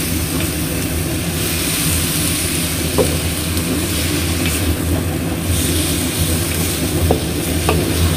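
Bitter melon and salted squid sizzling in a wok while being stirred with a wooden spatula, over a steady low rumble, with a few clicks of the spatula against the pan.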